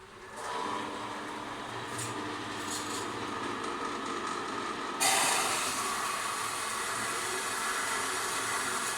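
A Forestwest 4.5-inch metal bandsaw starting up and running steadily. About five seconds in, the blade bites into the metal stock and a louder, hissier cutting noise sets in and holds.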